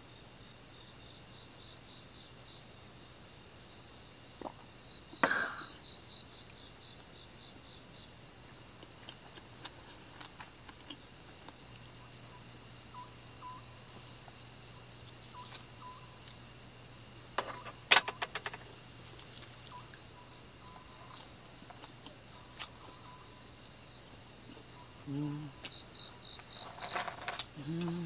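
Steady chirring of insects in the surrounding forest, with a few sharp clicks and knocks, the sharpest about eighteen seconds in.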